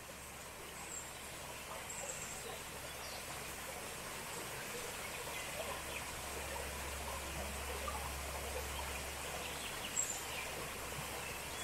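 Small woodland stream flowing gently, a steady soft hiss, with a few short high bird chirps.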